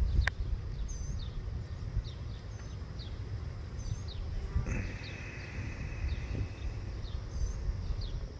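Outdoor ambience: a steady low rumble like wind on the microphone, with faint, short high chirps repeating every half second or so. About halfway through, a held high-pitched call lasts a couple of seconds.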